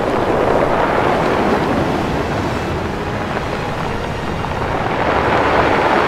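Steady rushing noise of ocean waves and wind, swelling a little near the end.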